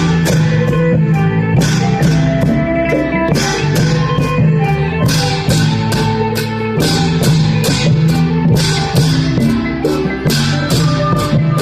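Dance music: a plucked-string melody over a low drone and a steady drum beat with regular, evenly spaced cymbal strokes.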